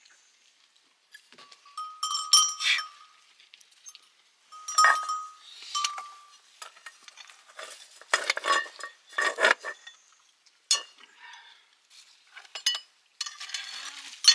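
Steel plates and bowls clinking and scraping as they are handled, several strikes leaving a short ringing tone.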